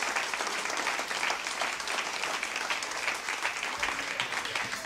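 Live audience applauding at the end of a tune: dense, steady clapping.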